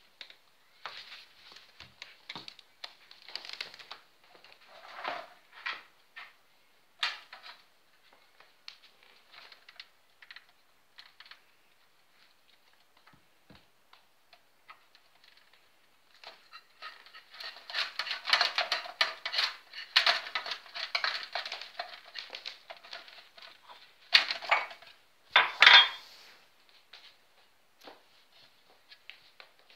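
Dishes and a metal tray clinking and clattering as a kitten picks its way through them, scattered clinks at first, then a dense stretch of rattling past the middle and two louder clatters toward the end.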